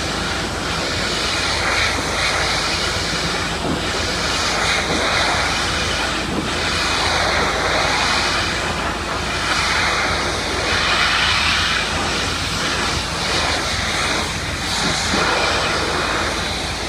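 High-pressure water spray from a pressure washer wand hissing against vinyl siding, swelling and fading as the spray sweeps across the boards, over a steady low drone.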